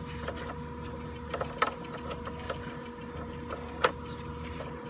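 Sewer inspection camera rig in a drain line: a steady electronic hum and whine with irregular clicks and knocks as the camera cable is moved, the sharpest knocks about a second and a half and nearly four seconds in.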